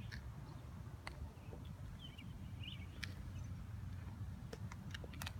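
Faint outdoor background: a steady low rumble with a few short bird chirps and some small clicks.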